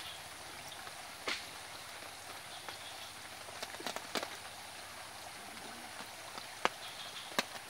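Steady outdoor background hiss with a handful of scattered sharp clicks and ticks, the loudest two near the end.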